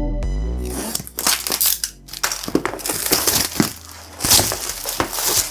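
Background synth music fading out in the first second, then close handling noise from PC parts being worked by hand: crinkling and rustling with many sharp clicks and knocks.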